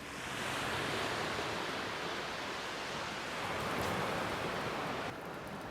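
Waves washing on a beach, a steady rush of surf that cuts off abruptly about five seconds in.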